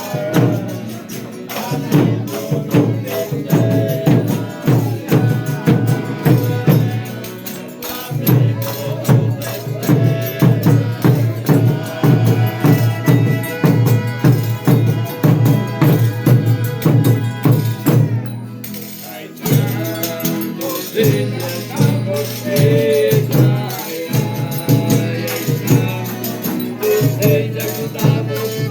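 Folia de Reis folk ensemble playing and singing, driven by a steady shaken-tambourine beat, with a short break about two-thirds of the way through.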